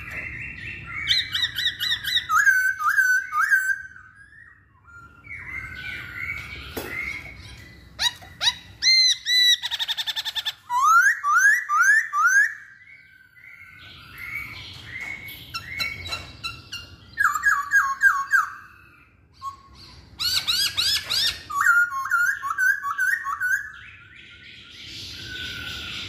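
Black-throated laughingthrush (poksay Hongkong) singing loud bursts of rapid whistled phrases with short pauses between them, including a fast trill about ten seconds in.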